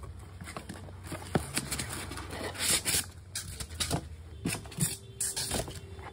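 Cardboard box being handled and opened: flaps and packing scraping and rustling, with irregular light clicks and taps.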